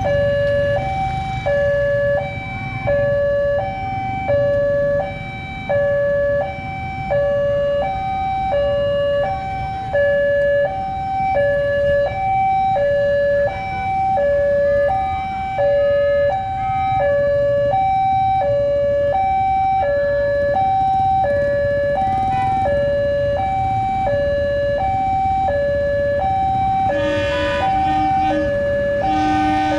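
Railway level-crossing warning alarm sounding a two-tone electronic signal, alternating steadily between a higher and a lower note, each held a little under a second: the warning that a train is approaching the crossing. Motorcycle and car traffic rumbles underneath.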